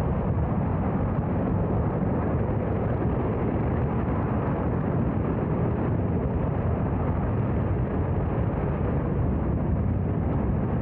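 Space Shuttle Main Engine (liquid-hydrogen/liquid-oxygen rocket engine) firing on a test stand: a loud, steady rocket roar, deepest and strongest in the low end, holding level without change.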